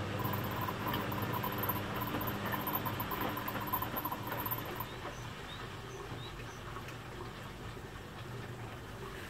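Beko front-loading washing machine on a delicate wash, its drum tumbling wet laundry with a swish of water. A motor hum and a fluttering high whine run until about halfway through, then stop and the sound drops a little quieter.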